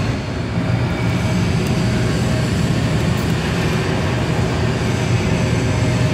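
Soda vending machine's refrigeration unit running: a steady low hum with faint tones above it.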